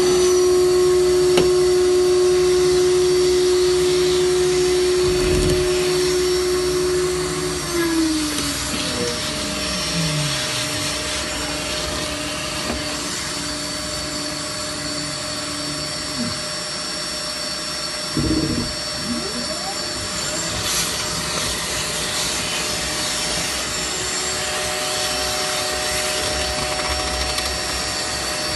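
A CNC wood router and its dust extraction running steadily with a whining hum and hiss. About eight seconds in, one motor tone slides down in pitch and fades out while the rest keeps running. There are a couple of brief low knocks.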